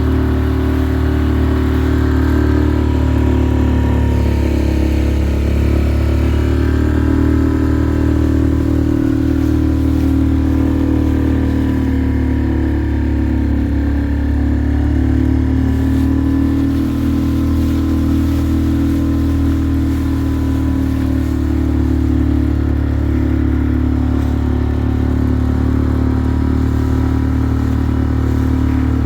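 An engine running steadily at a constant speed, its pitch wavering slightly now and then.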